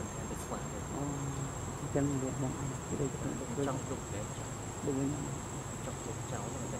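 Steady high-pitched insect drone, with short, low calls coming roughly once a second underneath.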